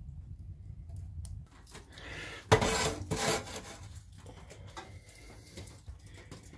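A frying pan set down on a wood-burning stove's top and slid across it: a sharp metallic clunk about two and a half seconds in, then about a second of scraping. A low rumble comes before it and stops about a second and a half in.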